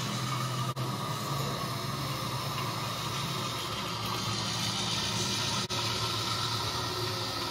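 Steady low hum under an even hiss, broken by two very brief dropouts, the first about a second in and the second later on.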